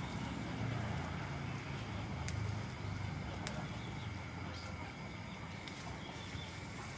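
Low, steady motor rumble, with a few sharp clicks as kaffir lime leaves are snapped off the bush, about two and three and a half seconds in.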